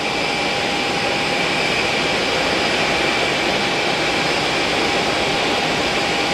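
Jet engines of an Airbus A320-family airliner running steadily as it rolls along the ground: a continuous rumble with two steady whining tones held over it.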